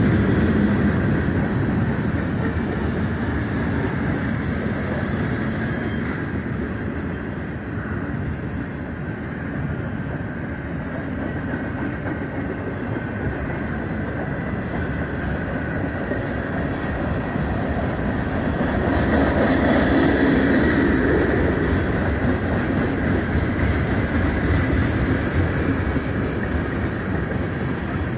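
Freight train cars (flatcars, tank car and hoppers) rolling steadily past at close range, a continuous rumble and clatter of wheels on the rails, growing louder for a few seconds about two-thirds of the way through.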